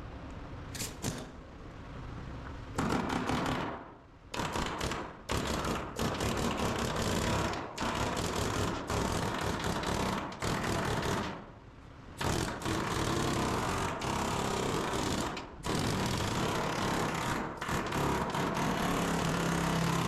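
A power tool runs in repeated bursts of a few seconds with brief pauses between them, working on car body metal.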